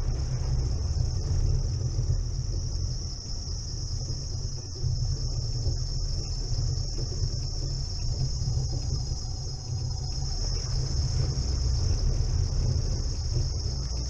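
Chevrolet Niva driving along a snowy, rutted forest track: a steady low rumble of the engine and drivetrain, with a steady high-pitched whine over it.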